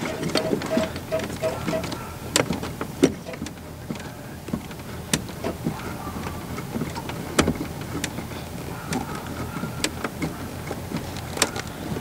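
Scattered clicks and knocks of hand work on a car's accelerator cable and linkage, with a short run of faint, evenly spaced pips in the first two seconds.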